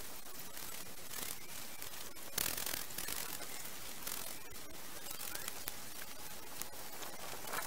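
Garden rake scraping and rustling through dead grass and twigs in short bouts, the loudest about two and a half seconds in, over a steady background hiss.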